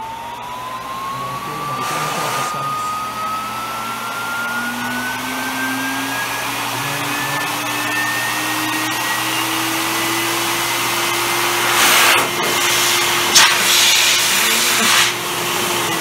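Air Force Blaster B-3V variable-speed pet grooming dryer running, its motor whine climbing steadily in pitch as the speed is turned up from the lowest setting, then holding at high speed. Loud gusts of rushing air come about twelve seconds in and again a little later.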